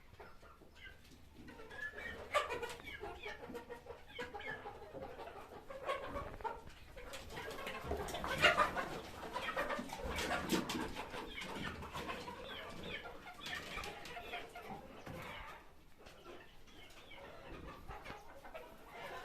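A flock of chickens clucking and calling, many short overlapping calls.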